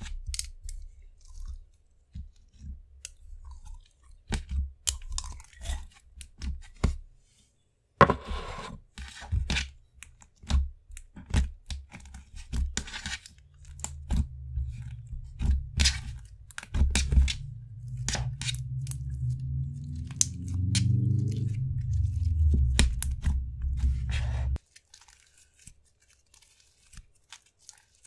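Slime mixed with foam beads being handled: a run of sticky clicks, pops and crackles as it is pulled out of its tub, poked, pressed and stretched. From about halfway a low rumble runs under the clicks, rising in pitch a little before it cuts off suddenly near the end.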